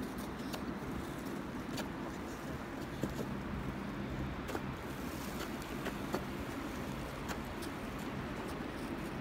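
Helicopter running, heard from inside the cabin: a steady low drone with a constant hum and a few faint clicks.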